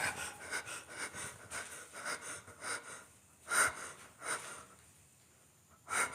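A person breathing quietly, with a few short, slightly louder breaths, the clearest about halfway through and near the end.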